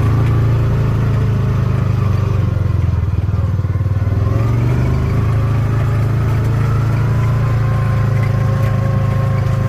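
Farm buggy engine running steadily under way, with a slight dip and recovery in engine pitch partway through.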